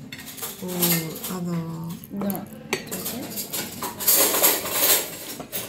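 Cutlery and china plates clinking and clattering on a restaurant table as the dishes are handled, with scattered sharp clinks and a busier clatter about four to five seconds in.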